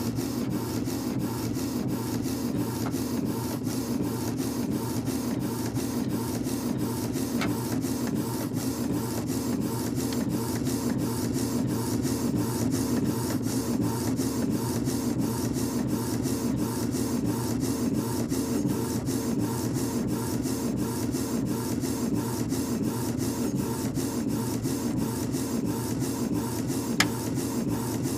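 Inkjet printer printing a photo: the print head shuttling back and forth in a steady, even rhythm over the hum of the paper-feed motor, with a sharp click near the end.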